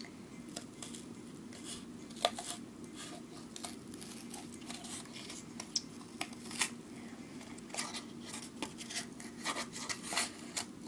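Scissors cutting through thin cardboard: irregular snips and crunching, with a steady low hum underneath.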